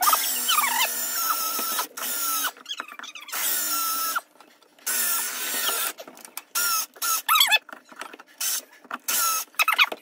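Cordless drill boring a hole up through a wooden cabinet bottom in many short stop-start bursts, the twist bit giving high, wavering, falling squeals as it cuts through the wood.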